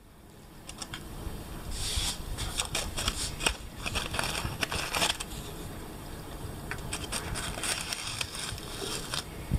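A cat clawing at a dry leaf wedged in a gap of a white window frame: the leaf crackles and the claws scrape, in irregular bursts with sharp clicks, busiest in the first half and sparser later.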